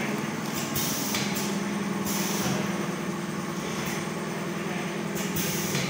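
Automatic auger filler packaging machine with screw feeder running: a steady motor hum, with several short hisses at uneven intervals.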